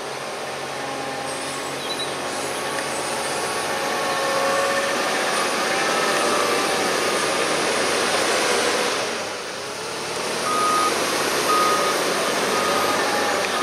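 JCB 419S wheel loader's diesel engine working under load as it pushes a buckrake of chopped maize up the silage clamp, the engine note building over the first several seconds and easing briefly about nine seconds in. Its reversing alarm then beeps about once a second as the loader backs up.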